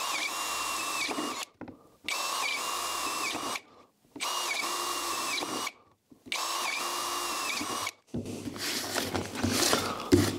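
Cordless drill running a step bit through PVC pipe in four short bursts of about a second and a half each, one per hole, the motor's whine dipping in pitch as the bit cuts. Near the end comes irregular rustling as plastic shavings are brushed off the pipe.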